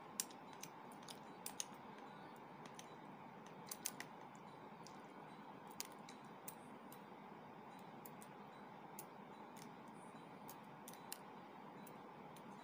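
Shell of a boiled balut egg being picked off by fingertips: small sharp cracks and clicks at irregular intervals, a few close together about a second in and around four seconds in, over a faint steady hiss.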